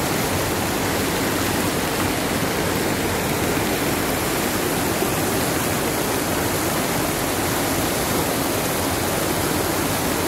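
Steady rush of fast-flowing floodwater running down a street.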